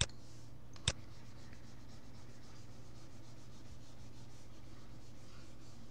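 Two sharp clicks about a second apart, then a faint steady low hum with light hiss.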